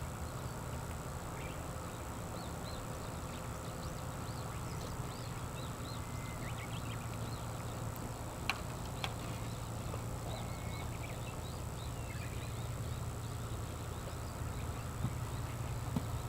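Steady outdoor background rumble with faint, scattered high chirps of small animals and a couple of sharp clicks.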